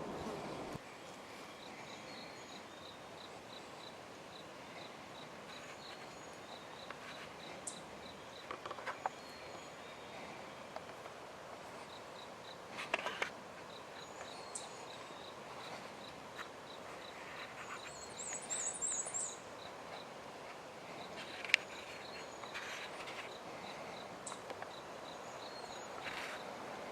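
Quiet spring woodland ambience: a steady high chirping that repeats about three times a second, a brief high-pitched bird twitter a little past the middle, and a few faint clicks and rustles, the sharpest about four-fifths of the way through.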